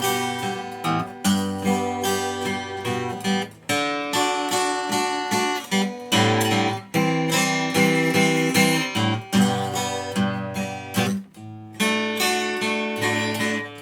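Acoustic guitar strummed in a steady rhythm, playing the instrumental introduction to a hymn before the singing begins.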